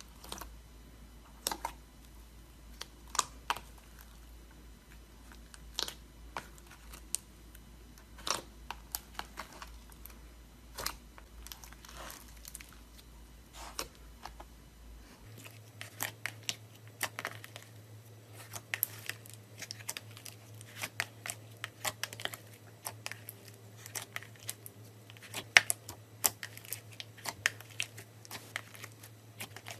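Thick glossy slime squished, pressed and folded by hand in a plastic tub, giving sharp clicks and pops. They come sparsely at first and much faster from about halfway through.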